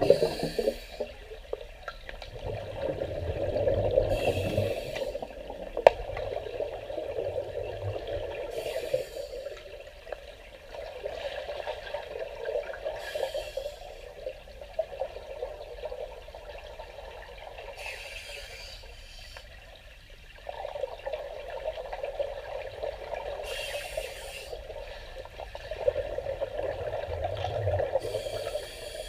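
Scuba diver breathing through a regulator underwater: a short hiss about every four to five seconds, alternating with longer stretches of gurgling exhaled bubbles.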